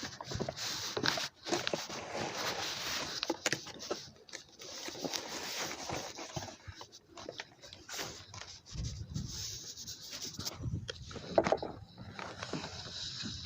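Irregular scraping and rubbing with short clicks as multi-purpose grease is worked into the seat where a new wheel hub assembly will sit.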